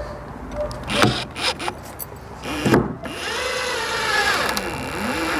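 Metabo SSD 18 LTX 200 BL 18-volt cordless impact driver driving screws into a door lock. It gives short bursts about a second in and again near the three-second mark, then a longer run whose motor pitch rises and falls back as the screw goes home.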